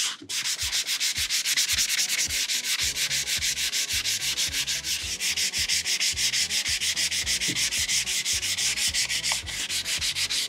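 Sanding block with sandpaper rubbed by hand over a flat pine board, in quick, even back-and-forth strokes that make a steady rhythmic scratching. This is smoothing of the board's face, worked until a pencil mark drawn on it disappears.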